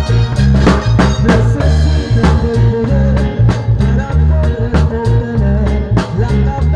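Music with a steady drum beat, heavy bass and a melodic line.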